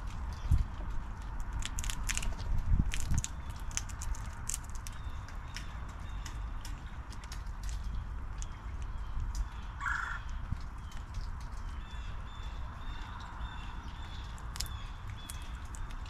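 Fox squirrel eating from a seed dish: a run of sharp crunching clicks as seeds and nuts are cracked, thickest in the first few seconds and then sparser. A brief bird call about ten seconds in, and faint repeated high chirps near the end.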